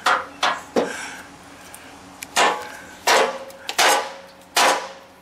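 Split hardwood firewood being unloaded by hand from a steel truck bed: a series of sharp wooden knocks as pieces are pulled out and tossed onto the pile, some ringing briefly off the metal. Three knocks come in the first second, then after a lull four more come about one every 0.7 s.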